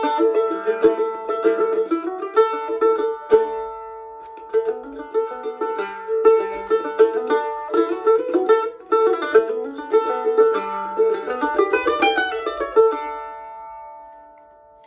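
Plucked string instrument playing a quick picked melody. About thirteen seconds in it ends on a final chord that rings on and fades away.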